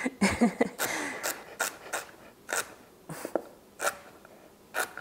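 Kitchen knife cutting through celery stalks onto a bamboo cutting board, a run of short sharp cuts: several quick ones at first, then slowing to about one a second.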